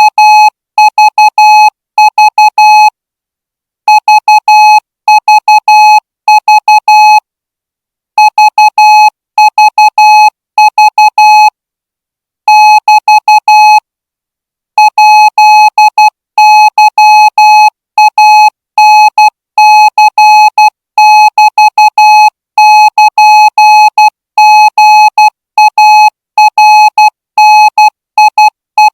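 Morse code sent as a single steady pitched tone, keyed on and off in short and long marks (dots and dashes). The marks come in groups separated by short pauses, as code is sent for a signallers' receiving test.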